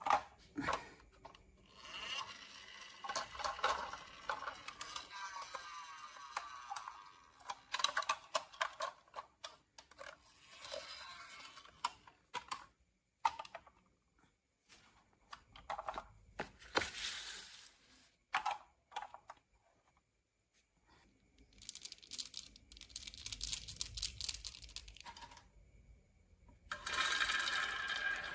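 Marbles rolling down a wooden marble run of HABA slopes and tracks, a rattling roll with many sharp clicks as they drop and knock from piece to piece. The rolling comes in several separate runs with short pauses between them.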